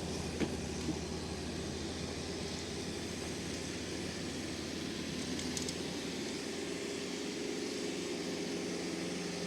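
Kubota tractor with a rear-mounted snowblower running steadily, a constant engine drone with a steadier hum coming in over the second half.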